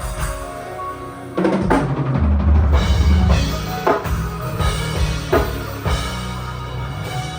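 Live band music at a sound check: a drum kit playing bass-drum and snare hits over held bass and pitched notes. It gets louder about a second and a half in.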